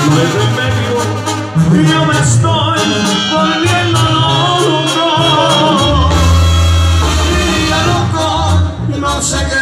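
Live Mexican banda music: a large band playing, with a sustained low bass line under singing and melody.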